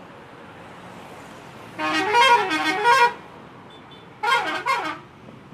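Telolet multi-tone horn playing its warbling up-and-down melody twice: a burst of about a second and a half, then a shorter burst about a second later.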